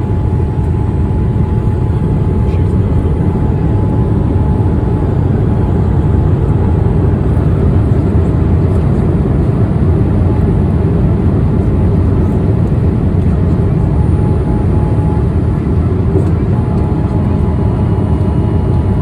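Boeing 787 Dreamliner in flight, heard from inside the cabin: an even, deep rush of engine and airflow noise with a faint steady tone above it.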